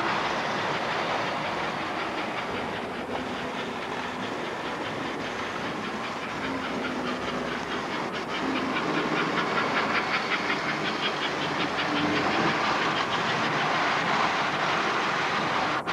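American Flyer S-gauge model trains running on the layout: a steady rumble and clicking of wheels over the track. From about eight seconds in, a quick rhythmic chuffing joins it, from a smoking steam locomotive's choo-choo sound unit.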